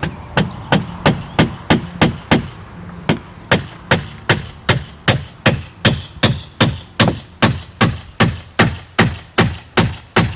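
Hammer driving nails into wooden boards: a steady run of sharp blows, about three a second, with a short pause about two and a half seconds in.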